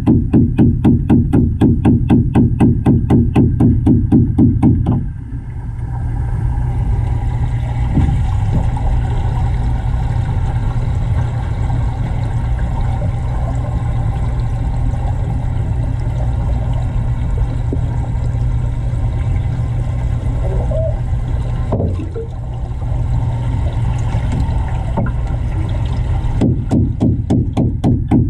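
Steady rushing of water and air bubbles, with a low hum, heard by a camera submerged in a large aquarium tank. A fast, even pulsing runs through the first five seconds and starts again near the end.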